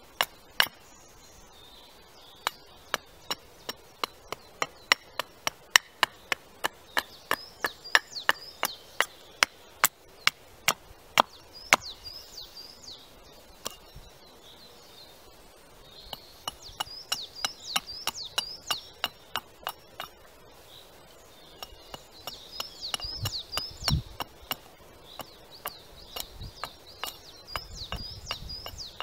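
Small carving axe chopping a wooden spoon blank held upright on a stump: a long run of sharp chops, about two to three a second, broken by short pauses, as the blank is roughed out.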